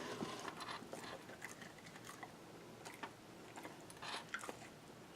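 A dog chewing a crunchy treat: faint, irregular crunches and clicks.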